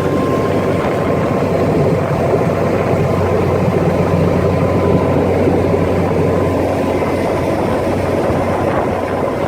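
5.7-litre V8 sterndrive engine of a 1996 Bayliner 2050 bowrider running steadily, a constant low hum with no change in speed.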